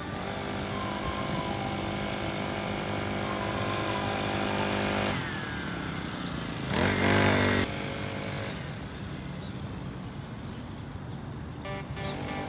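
40cc two-stroke pocket bike engine running at a steady, slowly climbing rev, then dropping in pitch about five seconds in. It revs hard and loud for about a second as the bike passes close, then fades as it rides away.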